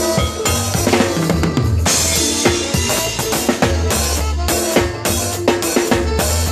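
A band playing live with the full drum kit prominent: bass drum and snare hits with rimshots over a steady bass line and held melody notes, with a cymbal crash about two seconds in.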